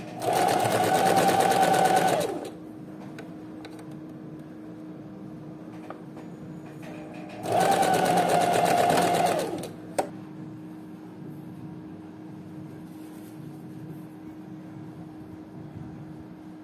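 Electric sewing machine stitching a seam in knit fabric, running in two bursts of about two seconds each, the second about seven seconds in, with a motor whine and rapid stitching rhythm. A single sharp click follows the second burst, and a faint steady hum runs underneath.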